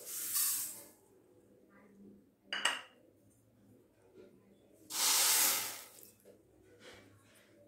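Granulated sugar poured from a cup into a stainless-steel kadai with a brief hiss, a single clink of the cup against the pan a couple of seconds later, then water poured in with a splashing rush lasting about a second, about five seconds in.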